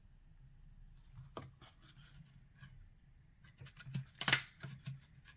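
A children's sound book being handled and its page turned: a run of quick clicks and papery scrapes, the loudest a little past four seconds in.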